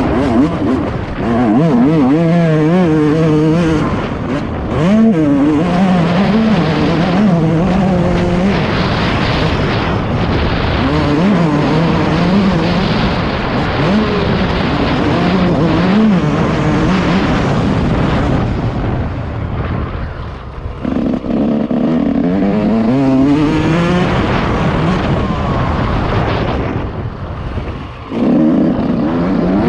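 Yamaha YZ 144 two-stroke motocross engine revving up and down repeatedly as the bike is ridden around a dirt track, heard from the rider's helmet camera. The throttle drops off briefly twice, about two-thirds of the way through and near the end, before picking up again.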